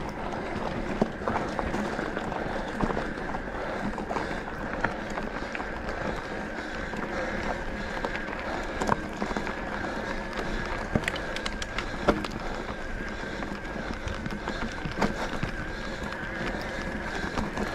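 Enduro e-bike on a trail: steady tyre and wind noise with a constant high whine from the pedal-assist motor, and scattered sharp knocks and clicks as the bike rattles over bumps.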